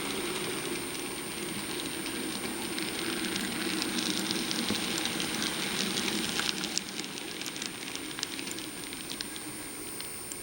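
Model train with no onboard sound system running along the track: the mechanical running noise of the locomotive and cars with frequent sharp clicks from the wheels on the rails. It gets louder toward the middle and drops off about seven seconds in.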